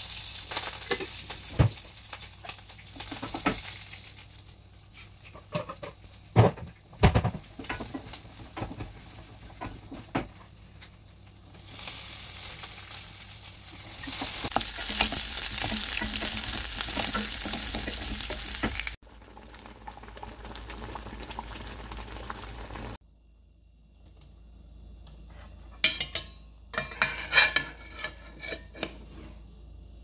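Peanuts, chopped onion and curry leaves frying in a stainless steel pan, with a steady sizzle and the scrape of a wooden spatula stirring them. The sizzle is loudest around the middle and cuts off suddenly. Knocks and clatter of kitchen utensils come before it and again near the end.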